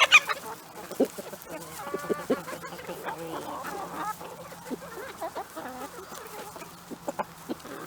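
A flock of chickens clucking softly and intermittently while they feed, with scattered short sharp taps.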